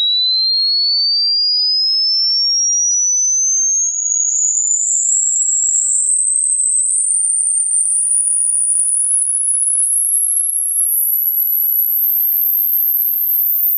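Hearing-test sine tone sweeping steadily upward in pitch, from a high whistle to a thin, very high tone near the top of human hearing, the range that ageing ears lose first.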